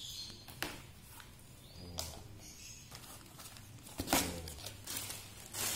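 Cardboard box flaps being handled and folded open, a few short rustles and scrapes of cardboard, the loudest about four seconds in.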